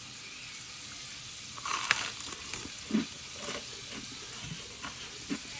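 Chicken frying in hot oil: a steady sizzle, with a louder crackle about two seconds in.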